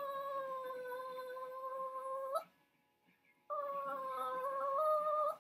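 Pomeranian howling and crying in two long, steady, high-pitched cries with a short gap between them, the second stepping up in pitch near its end. It is crying from separation anxiety.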